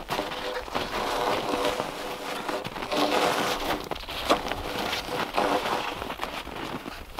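Crunching and scraping of snow and bark as a man wrestles a long cherry log upright and onto his shoulder, with one sharp knock a little past four seconds in.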